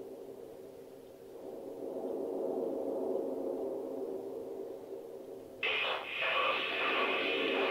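Intro of a downtempo dub track: a sustained droning chord that dips and swells again, joined suddenly about five and a half seconds in by a brighter, hissy textured layer.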